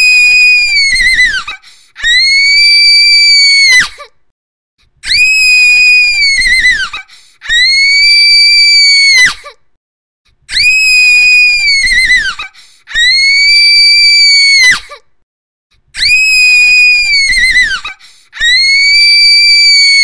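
A girl's high-pitched scream, repeated eight times. Each scream is held for about two seconds at a steady pitch and drops off at the end, and they come in pairs with short silences between them.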